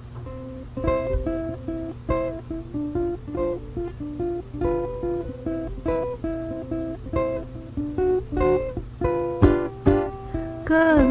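Acoustic guitar picking out the opening of a song, single plucked notes in a steady pattern; a singing voice comes in near the end.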